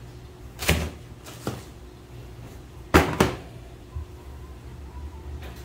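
A trail running shoe being set down into its cardboard shoebox, making a few dull knocks and thumps. The loudest is a quick pair about three seconds in.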